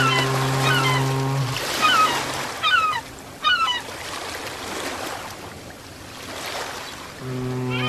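Ocean waves washing, swelling in the middle, with repeated short bird calls through the first half. A sustained low synth drone stops about 1.5 s in and comes back near the end.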